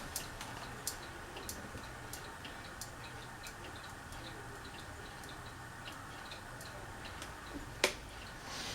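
Fasco Gulf Stream ceiling fan running with a steady low hum. Light regular ticks come about twice a second and fade after the first few seconds. One sharp click sounds near the end.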